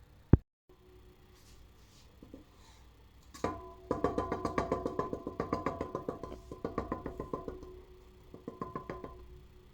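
Background music: a fast, even run of struck or plucked notes over a few held pitches, starting about three and a half seconds in and fading near the end. Just before it, a single sharp click near the start.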